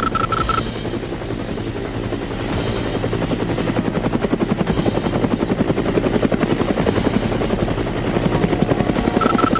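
Helicopter sound effect: the rotor blades chopping in a fast, steady pulse. A quick run of high beeps sounds in the first half-second and again at the very end.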